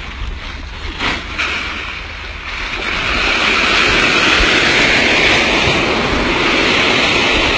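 Rushing water: a splash in a pool throws up spray, with a couple of sharp splashes just after a second in and then a loud, steady hiss of water from about three seconds in.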